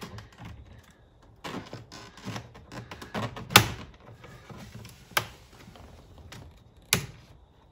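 A plastic trim tool scraping and prying at a VW Jetta's dashboard end trim panel, with three sharp snaps about three and a half seconds in, at five seconds and near the end as the panel's tight retaining clips pop loose.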